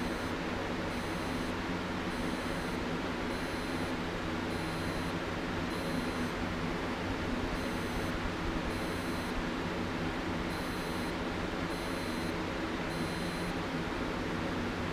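A digital multimeter's continuity beeper sounding in a string of short high beeps, about one every two-thirds of a second with a break of about two seconds partway through, as the probe is stepped across the commutator bars of a DC generator armature. Each beep signals continuity through the armature winding, the sign of a sound armature. A steady low hum runs underneath.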